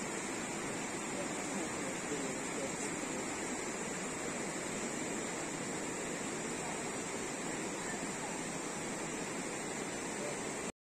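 Steady rushing water noise, even and unbroken, that cuts off abruptly near the end.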